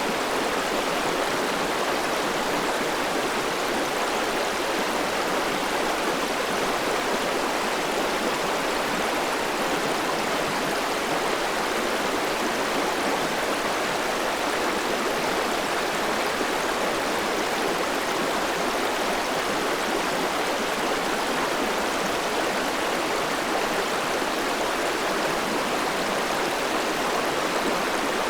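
River water rushing steadily, an even, unbroken wash of sound.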